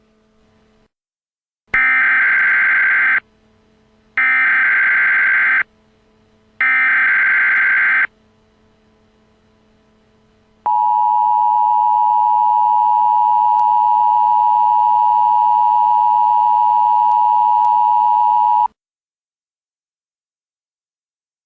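Emergency Alert System SAME header: three shrill bursts of warbling data tones, each about a second and a half long with a short gap between them. The steady two-tone attention signal follows for about eight seconds and cuts off sharply, announcing an emergency alert. A faint steady hum lies under the bursts.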